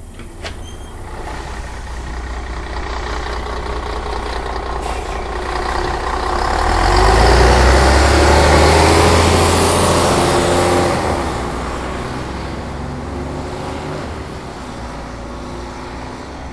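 MAN NG 313 articulated city bus engine pulling under load. It builds steadily, is loudest for a few seconds in the middle, then eases off about eleven seconds in.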